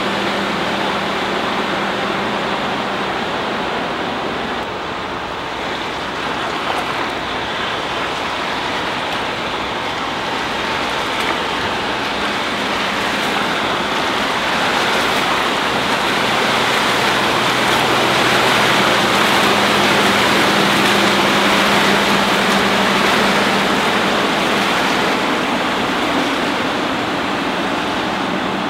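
A Volvo Penta D3-190 five-cylinder diesel stern drive running at planing speed as the boat passes: a steady engine drone over the rushing hiss of the hull and wake. It swells to its loudest about two-thirds of the way through and eases off near the end.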